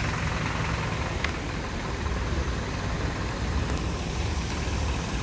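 Steady city background noise, a constant low rumble under an even hiss, with a short high tick about a second in.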